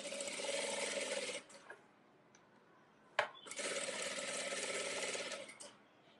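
Industrial single-needle sewing machine stitching a pants inseam in two runs of rapid stitching: the first stops about a second in, and after a short pause a second run starts with a click and goes on for just over two seconds.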